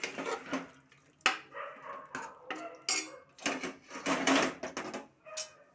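Steel ladle stirring and scraping through a thick curry in a pressure cooker, with repeated metal clinks and knocks against the pot. About three and a half seconds in comes a denser clatter as the pressure cooker lid is handled over the pot.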